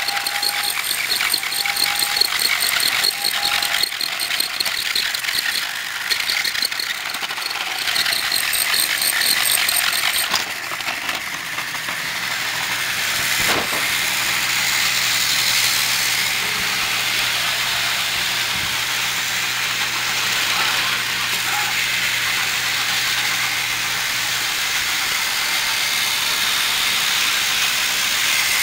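Battery-operated Trackmaster toy trains running on plastic track: a steady whirring of small electric motors and gears. A fast, even clicking rides on the whir for about the first ten seconds, then it runs smoother.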